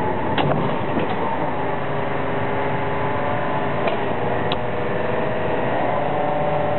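Seybold Saber IV 58-inch paper shear running with a steady motor hum, with a few light clicks as freshly cut paper strips are handled.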